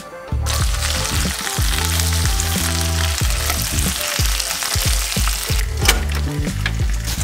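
Bacon strips frying in oil in a hot pan, a loud steady sizzle that starts about half a second in and stops suddenly near the end. A few sharp clicks follow.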